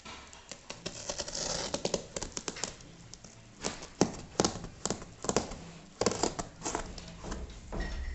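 Parcel packaging being handled and torn open: crinkling and tearing of wrapping, with many sharp clicks and rustles, busiest in the middle.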